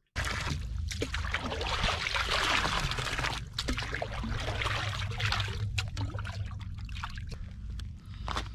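Icy water and slush sloshing and splashing in a freshly cut ice hole as it is churned by hand, busiest in the first few seconds and thinning to scattered splashes, over a steady low rumble.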